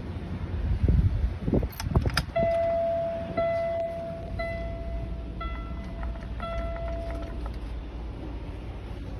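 Keys and a few knocks, then a truck's dashboard warning buzzer beeping about once a second for about five seconds as the ignition is switched on, over a steady low hum. No engine cranking is heard.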